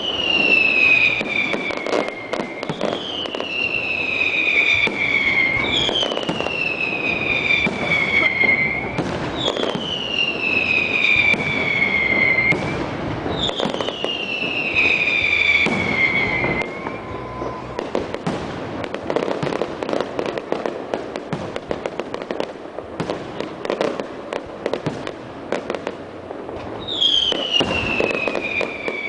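Aerial fireworks display: whistling fireworks, each a high whistle sliding down in pitch over two to three seconds, go off every few seconds amid the bangs and crackle of bursting shells. The whistles stop about halfway through, leaving a dense stretch of bangs and crackling, and one more whistle comes near the end.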